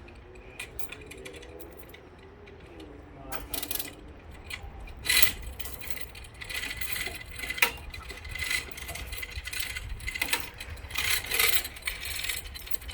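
Irregular metallic clinking and jangling, like chain or steel hardware being handled, over a low steady rumble. The clinks come thickest in the second half.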